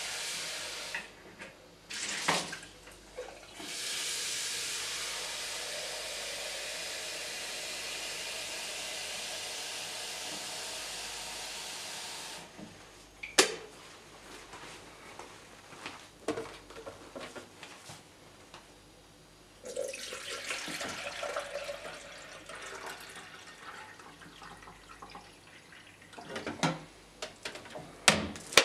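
Kitchen tap running in a steady rush for about eight seconds, cut off abruptly, then a sharp click and scattered knocks, and a second shorter rush of water a few seconds later.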